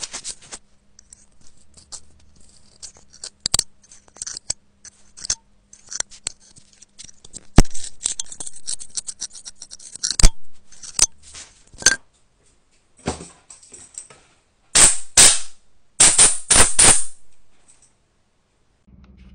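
Metal pick scraping and picking packed lint out of a phone's charging port, heard close up: irregular scratchy clicks and rasps, with a run of louder scrapes near the end.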